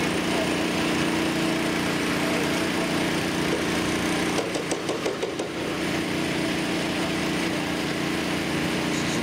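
Small gasoline engine of a portable water pump running steadily, pumping water from the main break; the hum briefly wavers with a few clicks about halfway.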